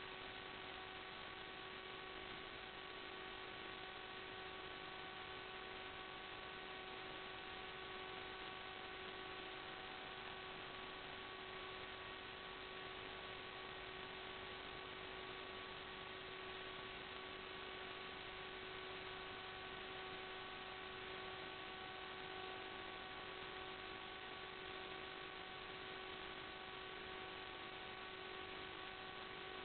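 Steady hiss with a faint hum of several steady tones: electrical noise on the recorded audio channel of an FPV video link, unchanged whether the drone is moving or sitting on the ground.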